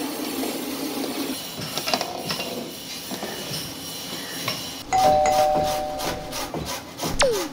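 Spatula stirring and scraping thick milk and rice in a metal pot. About five seconds in, a two-note doorbell-style chime sounds for about a second and a half, and near the end a quick falling swoosh: sound effects of an on-screen subscribe-button animation.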